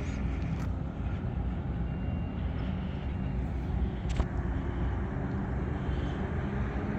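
Steady low rumble of road traffic, with a couple of brief clicks about half a second and four seconds in.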